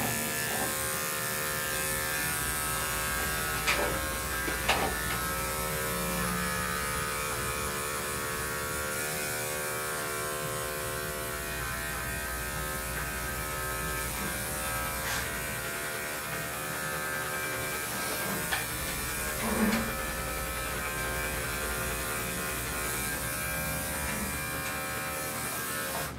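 Electric pet grooming clippers running with a steady buzz as they shave a large dog's coat, with a few light taps along the way; the motor stops at the very end.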